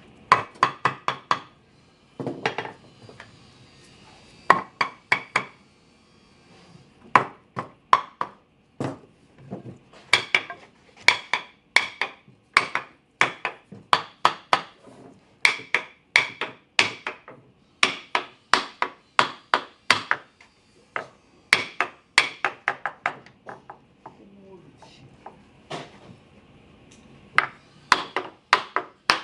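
A hammer striking wood in quick bursts of three to six sharp blows, with short pauses between bursts, knocking glued joinery of a wooden frame together.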